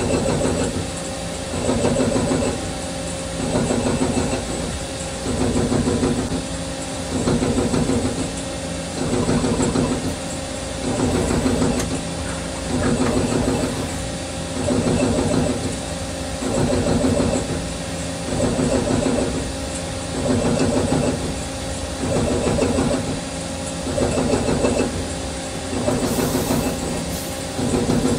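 CNC lathe machining with a grooving tool: the running machine and the cut swell and ease off in a regular pulse about every two seconds, in step with a peck-grooving cycle's repeated plunges and retracts.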